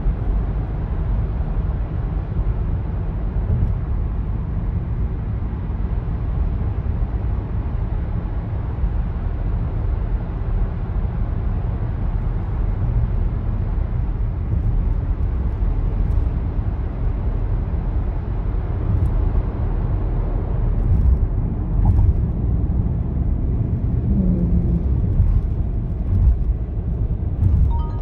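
Volkswagen T-Roc 2.0 TDI cruising at expressway speed, heard from inside the cabin: a steady low rumble of tyre, road and running noise.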